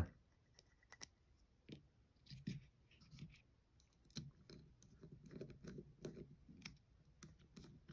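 Faint, scattered small clicks and light scrapes of a small Torx bit driver turning a handle screw into a folding knife's canvas micarta scales.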